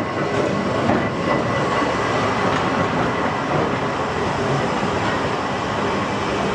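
Manx Electric Railway open crossbench electric tram rolling past close by: a steady rumble of wheels on rail with light clicks, and a faint high whine throughout.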